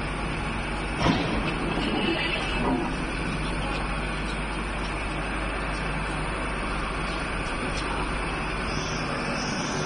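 Steady low hum of factory machinery, with a single knock about a second in.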